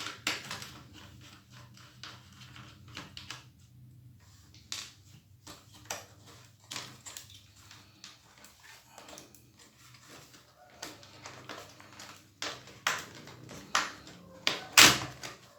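Small clicks, taps and scrapes of hands and tools working on an opened laptop's internal parts, likely the battery connector being unplugged and motherboard screws being worked. The clicks come irregularly, with a louder knock near the end.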